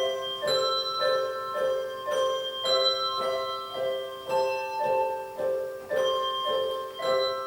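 Handbell choir ringing chords, a new chord struck about twice a second, each ringing on until the next.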